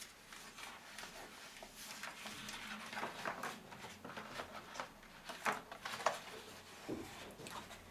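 Faint rustling of a paper print handled and slid out of a wall-hung picture frame, with scattered light taps and clicks.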